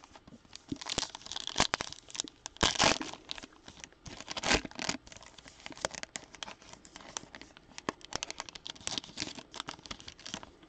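Foil wrapper of a trading-card pack crinkling and tearing as it is handled and opened: a dense run of sharp crackles, loudest about three and four and a half seconds in.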